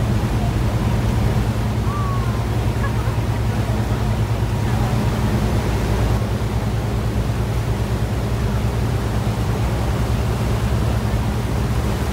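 River cruise boat's engine droning steadily, with a continuous rush of wind and water over it.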